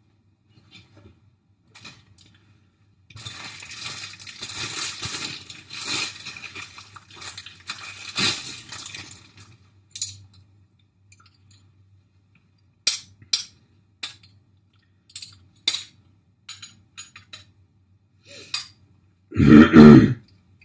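Metal parts of a door closer kit being handled: a stretch of rustling and clattering, then a run of sharp separate metallic clinks. Near the end comes a loud, low burst, about a second long.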